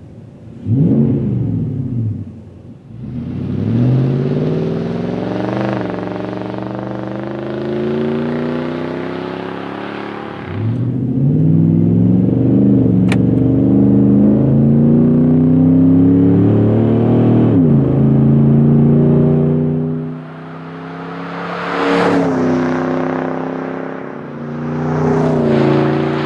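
Nissan Titan's 5.6-litre V8 through a Flowmaster FlowFX cat-back exhaust, accelerating through the gears. The pitch climbs in long pulls and drops at each upshift, after two short revs at the start. It is heard first from inside the cab, then from the roadside near the end as the truck drives past.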